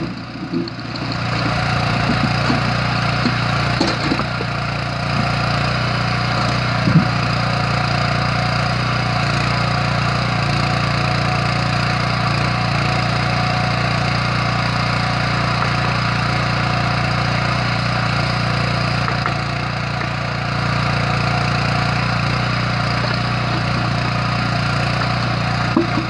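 The Kellfri towable backhoe's 9 hp petrol engine running steadily under load while the hydraulic arm digs. A few sharp knocks or cracks break through it, the loudest about seven seconds in.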